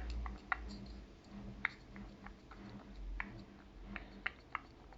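Worn water pump from an Opel Astra G being rocked by hand: faint, irregular clicks and knocks from the play in its shaft. This play is what made the engine noisy.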